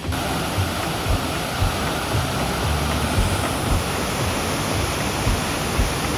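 Steady rushing of falling water from a river waterfall. It cuts in and out abruptly.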